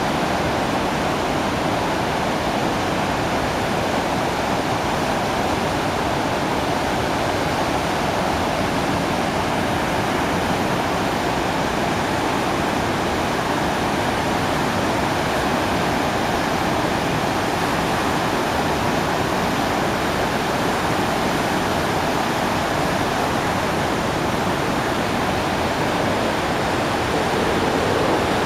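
Sarpsfossen, a large river waterfall on the Glomma, running at very high flood flow: a steady, even rush of falling water that grows slightly louder near the end.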